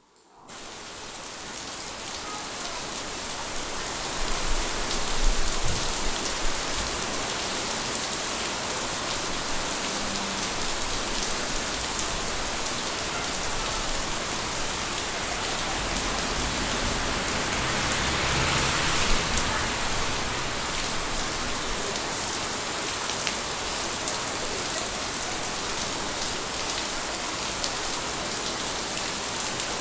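Steady rain pouring down, with individual drops pattering on nearby surfaces; it fades in over the first few seconds. A low rumble swells briefly about five seconds in.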